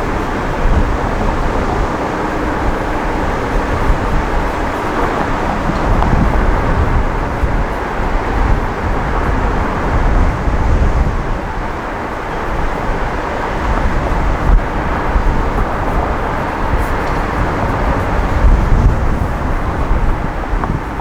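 Driving noise from a moving van, heard through a camera mounted on its roof: a steady haze of road and traffic noise, with uneven low rumbling swells of wind buffeting the microphone.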